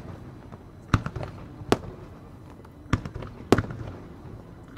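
Aerial firework shells bursting: four sharp bangs at uneven intervals about a second apart, each trailing off in a short echo.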